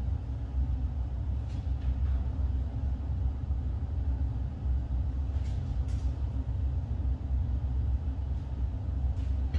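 Steady low background rumble, with a few faint soft taps about halfway through and near the end as bare hands and feet land on a floor.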